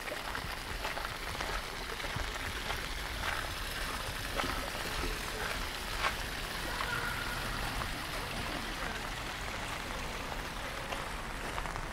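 Steady rain falling, an even hiss broken by a few sharper drips and taps.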